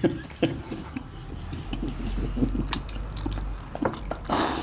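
Close-up chewing and biting of steamed momo dumplings with a full mouth: wet smacks and small clicks, with a short breathy burst near the end.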